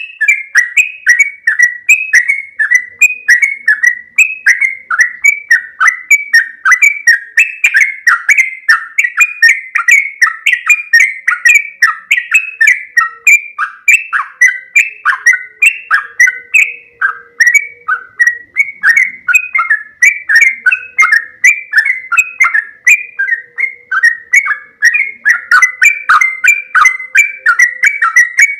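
Yellow-vented bulbul (trucukan) singing a long, unbroken rolling song: a rapid stream of short, bright whistled notes, about three a second, many sliding downward.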